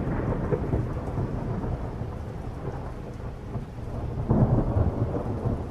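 Thunder rumbling with a hiss of rain. The roll dies away, then swells again about four seconds in.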